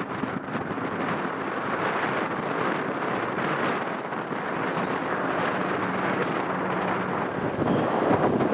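Steady rushing of wind buffeting the microphone on the deck of a moving car ferry, mixed with the ship's wash. It grows a little louder near the end, and a faint hum sounds briefly about two-thirds of the way in.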